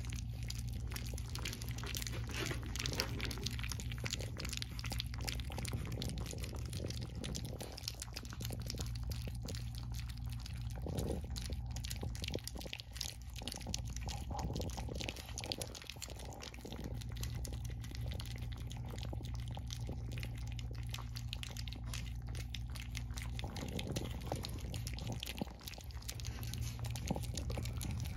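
Four-week-old French bulldog puppies lapping and smacking at wet weaning mash in a stainless steel bowl: a continuous, irregular patter of small wet clicks and slurps, over a steady low hum.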